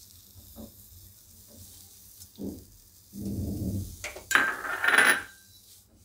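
Fresh coriander leaves being stirred with a silicone spatula in a dry, hot nonstick kadai, being dry-roasted so that their moisture cooks off. The rustling and scraping comes in a few bursts, the loudest about four to five seconds in.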